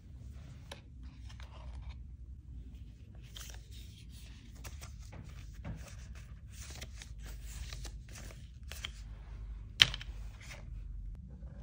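Gloved hands shuffling stiff paper instruction cards: a run of soft paper rustles and scrapes, with one sharp click near the end as the cards go back into the box.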